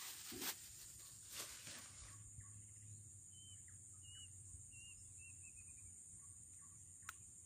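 Quiet marsh ambience with a steady high insect drone. A short run of faint bird chirps comes in the middle. There is soft handling rustle of a plastic bag and fishing gear in the first two seconds, and a single sharp click near the end.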